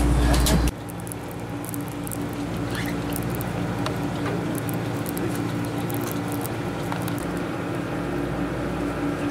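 A head boat's engine running steadily with a low hum, under scattered light clicks and taps. A louder low rumble cuts off abruptly under a second in.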